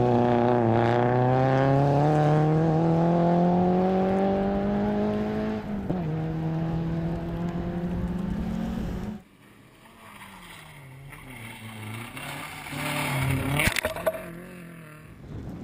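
Competition car engine revving hard under full throttle, its pitch climbing steadily with a gear change about six seconds in. After a cut about nine seconds in, a quieter car engine rises and falls as it approaches, with a short clatter of thrown grit near the end.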